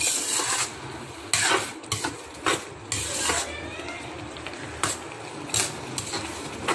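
Metal spoon stirring and scraping thick tomato-onion masala around an electric cooker's pan, in a series of short rasping strokes. The strokes come thickest in the first three seconds or so, then thin out to a few brief scrapes.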